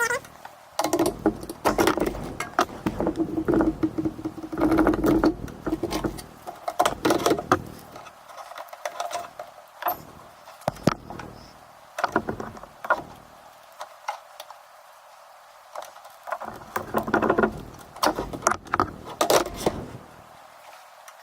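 Irregular scraping, clicking and crackling in bursts with short quiet gaps, as plastic pry tools and guitar picks are worked under an iPad mini's cracked glass digitizer to break it free of its adhesive.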